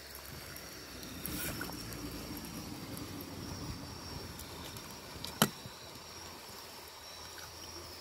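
River water trickling and flowing, with a steady high-pitched hum in the background. A single sharp knock sounds about five and a half seconds in.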